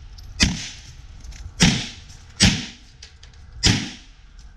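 Four pistol shots fired at an uneven pace, about a second apart, each a sharp crack with a short echo trailing off.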